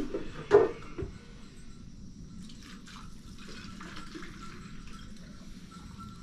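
Water poured from a small plastic bottle into a metal pot, a faint trickle and splash. A single sharp knock, the loudest sound, comes about half a second in.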